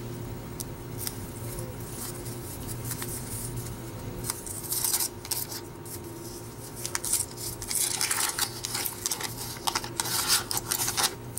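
Wax-paper wrapper of a 1990 Fleer baseball card pack crinkling and crackling as it is peeled open by hand. The crackles are sparse at first and grow dense from about halfway through.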